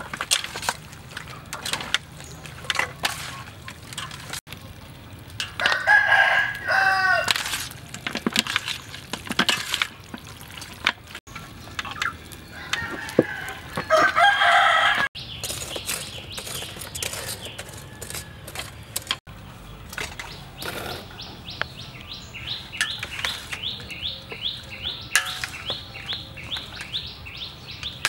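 A rooster crowing twice, each crow about a second and a half long, some eight seconds apart. In the last several seconds, a rapid, even run of high chirps.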